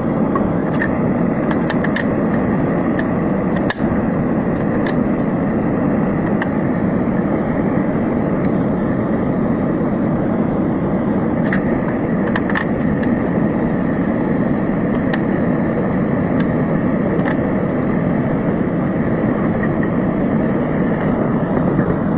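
Steady vehicle rumble, as of a car in motion, with a few faint clicks.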